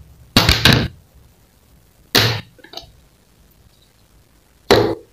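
Plastic cutting board set down on a countertop with a quick double knock, then two more single knocks about two and a half seconds apart as a knife and then food are put down on the board.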